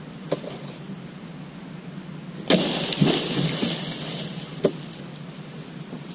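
Oil palm dodos (a chisel on a long pole) chopping into the base of a palm frond: a sharp chop about two and a half seconds in, then a loud rustle of the cut frond falling through the leaves, with two more chops and a single sharp knock shortly after. The going is hard, and the harvester wonders whether the chisel is blunt.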